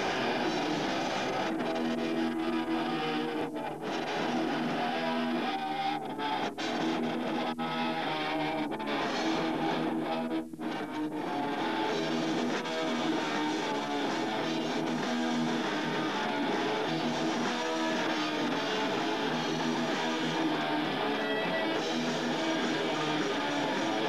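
Hardcore punk band playing, electric guitar to the fore over a dense wall of sound. There are a few short stops in the first half, about four, six and ten seconds in.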